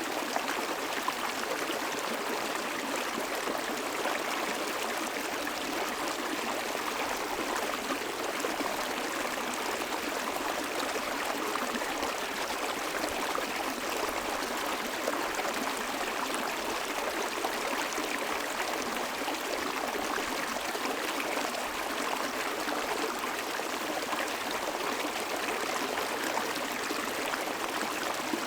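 Water of a small stream flowing steadily, an even continuous rush with no breaks.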